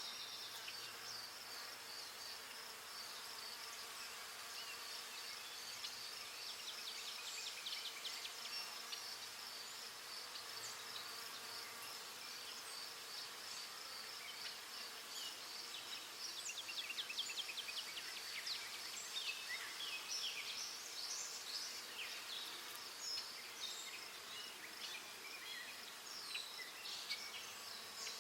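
Forest ambience: a steady, high-pitched, rapidly pulsing insect trill, with many short bird chirps over it, busiest in the second half, and a faint hiss beneath.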